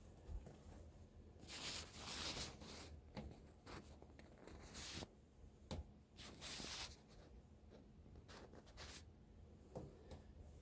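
Faint rustling and rubbing of clothing and handling noise close to the microphone, in a few short bursts with light clicks between them.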